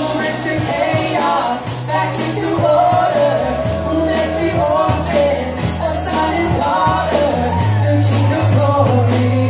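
Live worship music: a band with long held bass notes under singing voices, and a tambourine shaking along.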